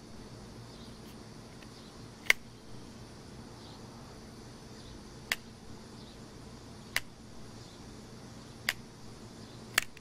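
Blackie Collins Strut'N'Cut assisted-opening folding knife being worked open and shut by hand, its mechanism giving five sharp clicks a second or two apart, the loudest about two seconds in.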